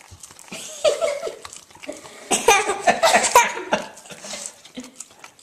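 People laughing: a short laugh about a second in, then a longer, louder burst of laughter from about two to four seconds in.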